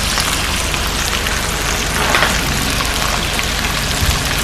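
Pork belly slices sizzling on an electric grill plate: a steady crackling hiss of fat frying, a little stronger about two seconds in.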